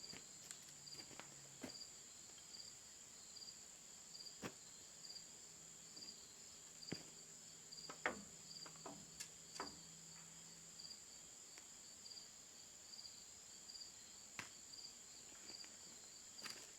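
Crickets and other insects: a steady high buzz with a regular chirp about twice a second, over scattered faint clicks and knocks.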